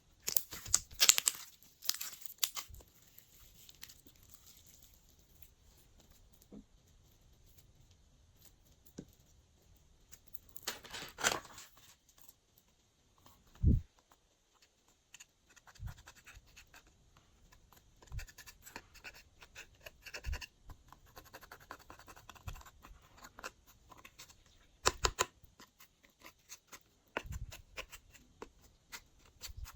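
Glossy slime being mixed and worked by hand: bursts of crackling, clicking squelches, a few soft thumps, and quieter stretches between.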